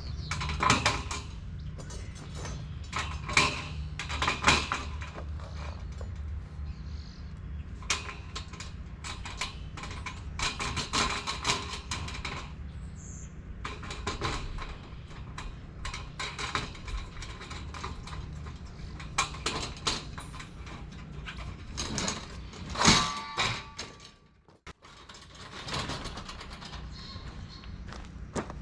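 Irregular metallic clinks, clanks and rattles of galvanized steel raised-bed panels and their hardware being handled and fitted together.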